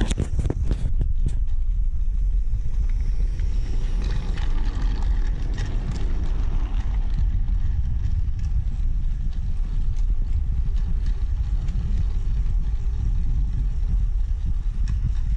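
Plarail DD51 toy diesel locomotive running on plastic track with its freight wagons: a steady motor-and-gear rumble with fast rattling clicks from the wheels over the track joints, and a few sharper clicks about a second in.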